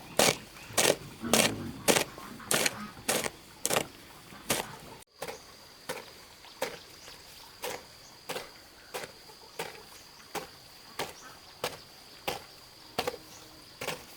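Regular, sharp strikes of a hand tool chopping or digging, about one and a half a second. They break off about five seconds in and resume fainter and slightly slower.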